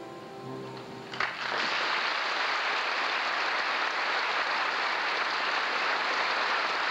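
Audience applause that breaks out about a second in, as the last held note of a sung solo song dies away, then holds at an even level.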